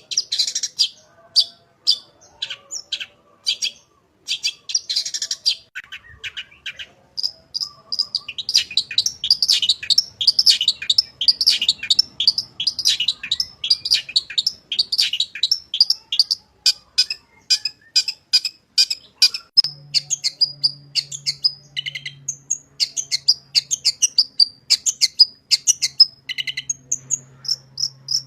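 Long-tailed shrike (cendet) singing a fast, chattering song of rapid high chirps packed with mimicked phrases. It breaks off briefly about four seconds in, then runs on denser and unbroken.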